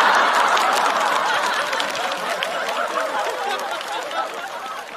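Studio audience laughing with some scattered claps after a stand-up punchline, loudest at the start and dying away gradually.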